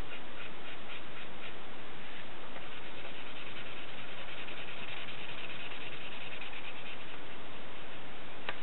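Colored pencil scratching on paper in rapid back-and-forth shading strokes, laying in the colour of a drawn pencil's body. A single sharp click near the end.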